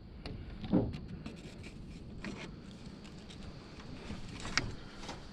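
Faint scattered clicks and scrapes of hand tools working on metal, with a soft knock about a second in.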